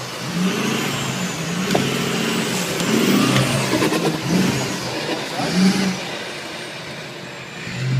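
Off-road pickup truck engine revving in repeated surges as the truck claws through a rough ditch, with a few sharp knocks along the way.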